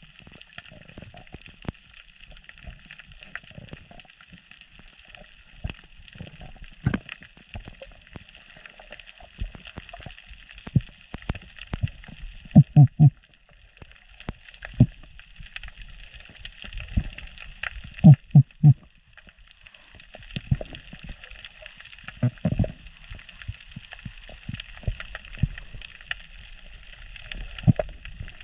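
Underwater ambience on a shallow reef: a steady crackling hiss with irregular low gurgles and thumps of water moving past the camera, loudest in short clusters of two or three thumps a little under halfway through and about two-thirds of the way in.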